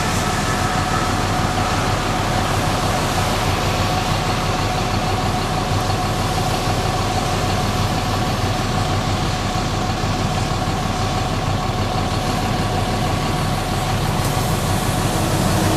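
Vehicle engine idling: a steady rushing noise with a low hum and a faint steady whine.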